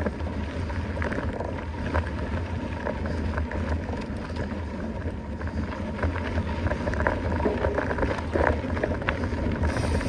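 Steady wind rumble on the microphone and the running noise of a mountain bike on a trail, with scattered clicks and rattles.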